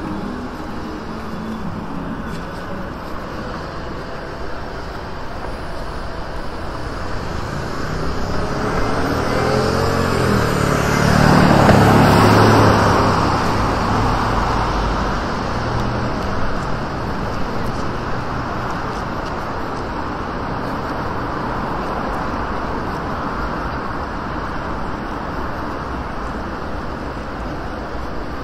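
Steady city street traffic noise. One motor vehicle passes close by: it grows louder from about eight seconds in, is loudest around twelve seconds, then fades.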